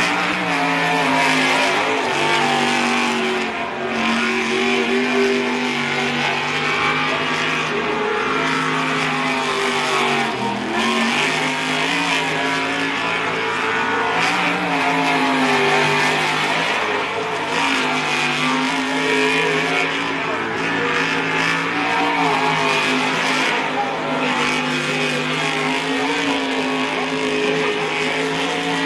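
Racing jet sprint boat's engine running hard, its pitch rising and falling as the boat powers through and out of tight turns, with a clear dip about ten seconds in.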